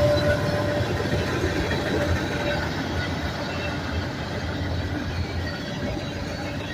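Manifest freight train passing: a steady rumble of wheels on the rails that slowly gets quieter, with a faint high squeal dying away in the first couple of seconds.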